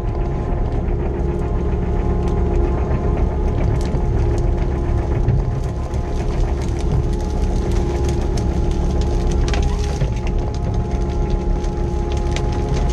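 Kobelco 5.5-ton mini excavator's diesel engine running steadily under hydraulic load, with frequent cracking and snapping as the log grab drags brush and branches.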